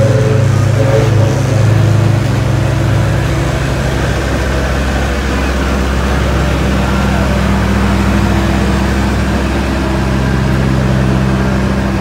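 Diesel engine of a compact tandem road roller running steadily, its note changing about halfway through.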